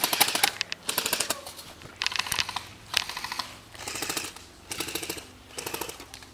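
Airsoft high-capacity magazine being wound by its thumbwheel: repeated bursts of fast ratcheting clicks, each about half a second long, roughly one a second, as the spring is wound up to feed BBs.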